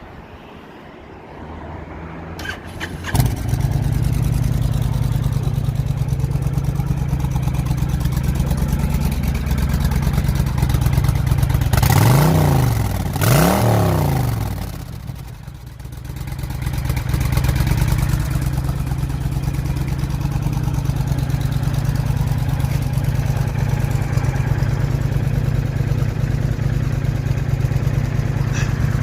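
A vehicle engine cranks and catches about three seconds in, then settles into a steady idle. Around the middle it is revved twice in quick succession, each rev rising and falling in pitch, then it returns to idling.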